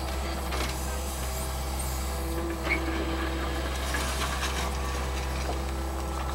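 Yanmar mini excavator's diesel engine running steadily as the boom swings back and the bucket digs into rubble, with a brief higher sound about three seconds in.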